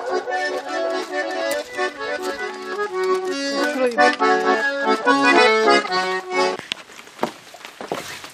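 Russian garmon (diatonic button accordion) playing a lively tune with chords, stopping about six and a half seconds in. A few knocks follow.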